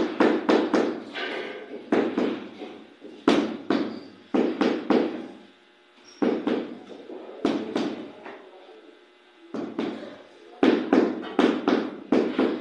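Rubber mallet tapping a floor tile down into its mortar bed, in quick runs of several knocks with short pauses between them.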